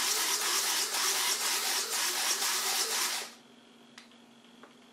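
Electric landing-gear retracts and flap servos of an RC model Boeing 737 running as the gear and flaps come up: a steady mechanical whirring that stops abruptly about three seconds in. A faint click follows about a second later.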